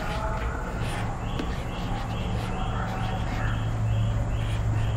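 Marker writing on a whiteboard over a steady low hum, with a short high chirp repeating about twice a second from about a second in.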